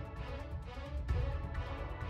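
Background music with a steady, quick beat and heavy bass.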